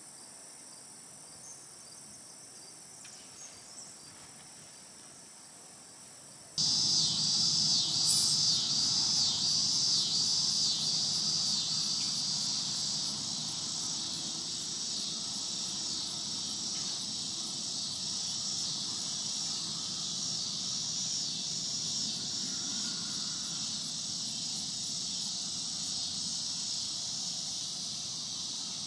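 Crickets and other insects chirring in a dense, steady evening chorus. It is faint at first and suddenly gets much louder about six and a half seconds in.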